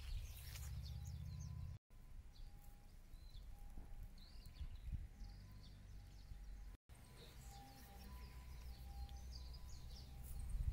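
Garden ambience: small birds chirping and a low wind rumble on the microphone, with a faint note repeating about once a second; the sound cuts out briefly twice.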